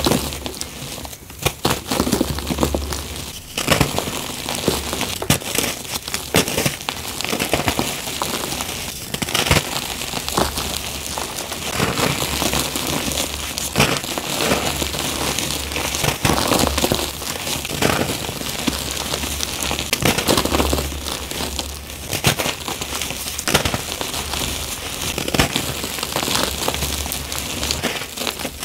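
Hands crushing and crumbling blocks of gym chalk into powder: a continuous gritty crunching dotted with many sharp little snaps.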